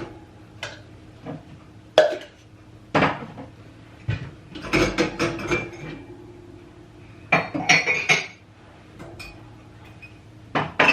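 Cutlery and dishes clinking and clattering as clean spoons and crockery are put away by hand, in a run of separate knocks and jingles with a cluster of quick clinks about halfway through and another near three-quarters of the way.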